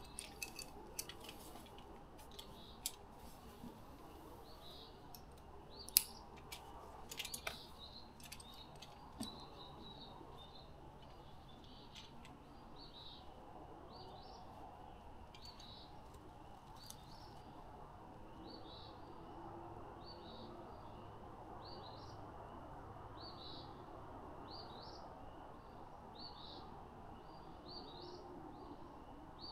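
A small bird chirping over and over in short, high calls, coming about two a second in the second half, over a faint steady background. A few sharp clicks and knocks fall in the first several seconds, the loudest about six seconds in.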